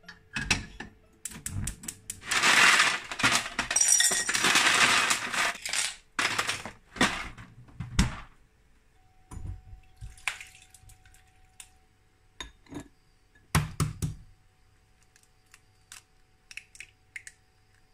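A glass mixing bowl being filled for a cold-water bath, with a few seconds of loud rushing, clattering fill a couple of seconds in. Scattered clinks and knocks of kitchenware follow, with light high clinks near the end.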